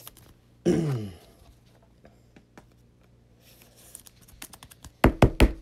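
Trading cards handled by hand on a tabletop: faint rustling and small clicks, then a quick run of sharp taps about five seconds in.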